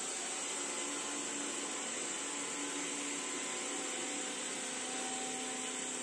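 Xiaomi Xiaowa Roborock Lite robot vacuum cleaner running as it drives across the floor: a steady whir from its suction fan and brushes, with a faint hum.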